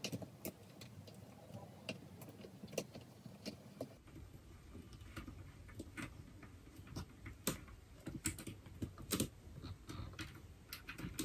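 Scattered small plastic clicks and taps from a ring light tripod head and its mount being handled and adjusted.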